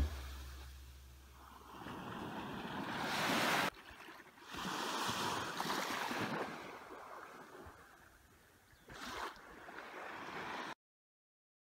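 Small sea waves washing up onto a sandy shore, the surf swelling and ebbing in three stretches, each cut off suddenly.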